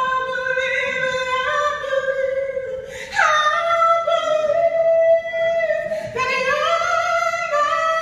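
A woman singing a gospel song solo, holding long notes, with a leap up to a higher note about three seconds in.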